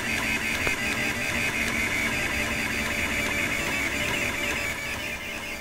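Rostock Max delta 3D printer running, its stepper motors whining in quick, shifting tones as the print head moves laying down infill. The sound eases slightly near the end.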